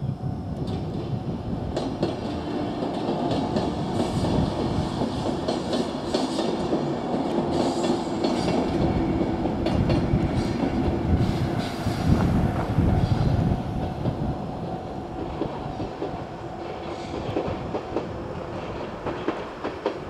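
A JR 103-series four-car electric train running past a level crossing, its wheels clacking over the rail joints under a steady motor hum, loudest about twelve seconds in and then fading. A level-crossing warning bell rings throughout.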